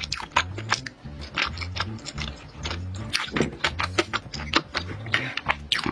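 Close-miked chewing of a mouthful of soy sauce beef: wet smacking and clicking mouth sounds, many short ones in quick succession. Under them runs background music with a steady bass beat.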